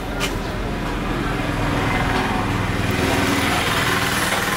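Highway traffic, with a small-engined vehicle running close by and growing louder through the middle. There is a single short click just after the start.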